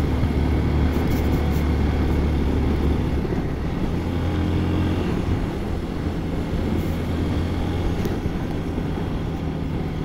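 Hero XPulse 200 4V motorcycle's single-cylinder engine running steadily while the bike is ridden along, its note shifting a few seconds in.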